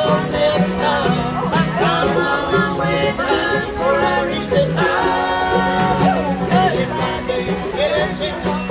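Acoustic bluegrass jam: acoustic guitar and other acoustic string instruments playing a bluegrass tune at a steady tempo.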